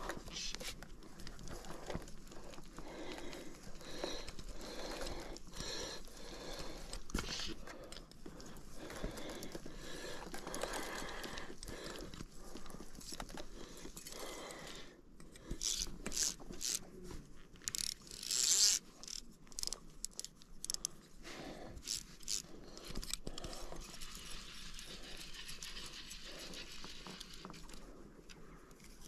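A fly reel and fly line being handled: irregular scrapes and sharp clicks, busiest in a run of ticks a little past halfway through.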